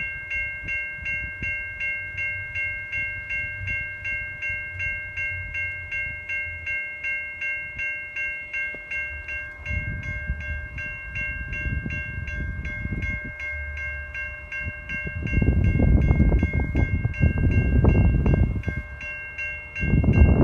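Railroad crossing warning bell ringing steadily, about twice a second, while the crossing signals are active. A loud low rumble joins it about fifteen seconds in and dips briefly just before the end.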